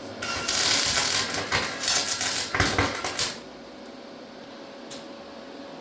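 Electric welder laying a tack weld: a loud, harsh crackle of the arc for about three seconds that stops suddenly, then a single faint click. The welders say it didn't sound like a good weld and take the welder setting to be too high.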